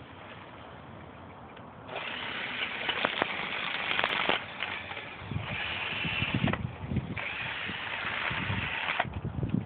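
Hand-held power drill running in three bursts of a couple of seconds each, boring into the dirt, with a few low thumps of handling between bursts.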